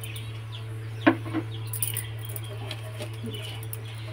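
Silicone spatula stirring and scraping crumbly maida roasting in ghee in a metal kadhai, with a sharp knock about a second in, over a steady low hum.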